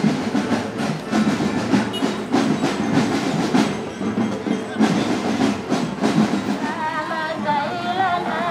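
Parade drums beating with a clattering street din. About seven seconds in, a wavering melody from the float's horn loudspeaker comes in over it.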